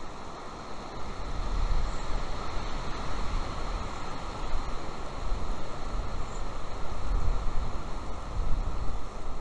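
Wind buffeting an outdoor camera microphone: a rough, rushing hiss with a gusty low rumble that swells about a second and a half in and again near the end.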